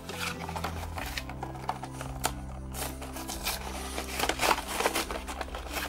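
A clear plastic blister being pried and peeled off a cardboard backing card, with irregular crackling, crinkling and tearing. Quiet background music with sustained low notes plays under it.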